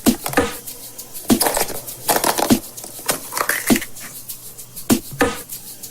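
Hands handling a surprise egg: a string of sharp crinkles and clicks about once a second, some with a short falling squeak, like foil and plastic being worked open.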